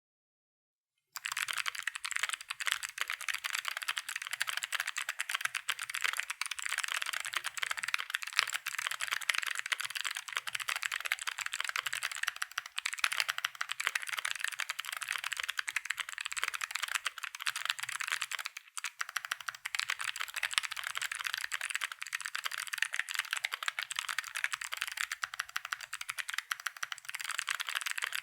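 Continuous fast typing on a mechanical keyboard with stock Chosfox Arctic Fox clicky switches, a polycarbonate plate and GMK keycaps: a dense stream of sharp, high clicks from the switches. It starts about a second in.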